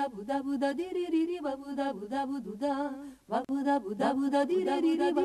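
Men's voices singing a cappella, with a short break about three seconds in.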